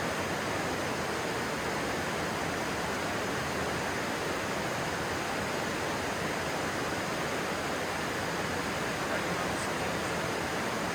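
Stream water rushing steadily: a constant, even rush with no breaks.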